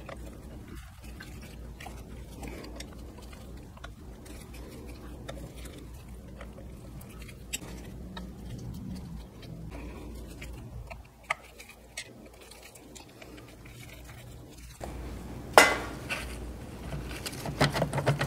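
Clutch hub and plate stack of a Suzuki Bandit 1200 being wiggled by hand to line up with the transmission input shaft: faint, scattered metal clicks and clinks, with a sharper clack about fifteen and a half seconds in, over a low steady hum.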